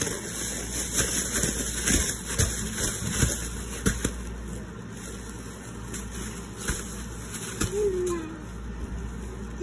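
Clear plastic bag crinkling and rustling as a baby grabs and pulls at it, with sharp crackles mostly in the first few seconds. A short baby vocalization near the end.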